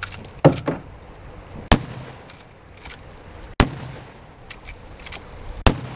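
Henry .30-30 lever-action rifle fired four times, about two seconds apart, each shot a sharp crack. Lighter clicks come between the shots as the lever is worked.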